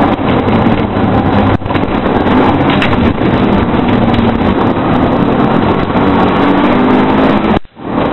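Car engine heard from inside the cabin, running hard under full load on a competition hillclimb run. There is a short dip about a second and a half in, and a sudden brief cut near the end.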